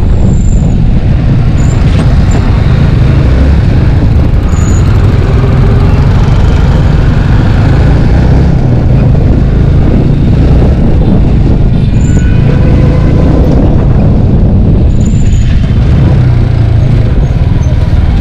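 Yamaha sport motorcycle's engine running as it rides slowly through busy street traffic, with a steady low rumble and road noise.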